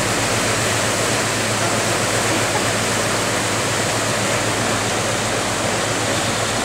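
Water rushing and churning through the openings of a wooden canal lock gate into the lock chamber: a steady, loud rushing noise as the lock is being filled. A steady low hum runs underneath.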